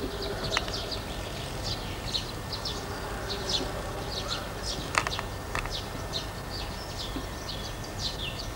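Small birds chirping and singing in many quick short high notes over a steady hiss, with a few sharp clicks, the loudest about five seconds in.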